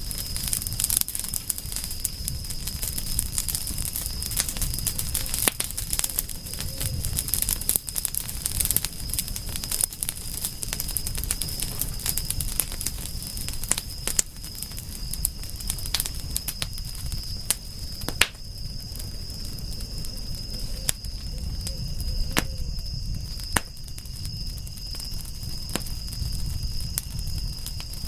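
Wood fire crackling with many sharp pops, a few louder ones, over the low rumble of the flames. A steady high insect trill, like crickets, runs underneath.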